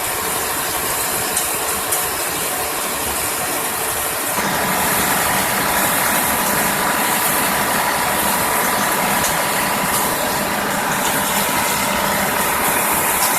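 Gold washing plant for alluvial sand running: steady machinery noise with an engine hum. About four seconds in it gets louder and a steady tone joins it.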